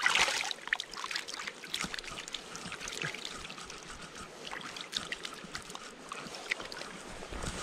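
Hands splashing and swishing in shallow creek water while releasing a trout and rinsing off, with a louder splash at the start and then small splashes and trickling over the stream's flow.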